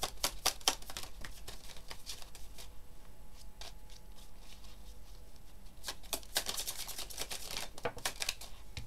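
A deck of tarot cards shuffled and handled by hand: rapid runs of crisp card flicks, dense at the start, sparser through the middle, and dense again with a papery rustle from about six seconds in.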